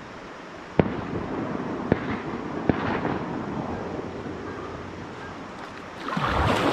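Three shotgun shots fired by another hunter, about a second apart, the first the loudest, each trailing a little echo over the river. A louder rush of noise comes near the end.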